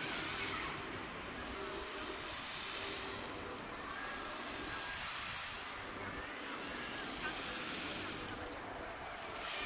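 Outdoor street ambience: a steady wash of noise with faint, distant voices.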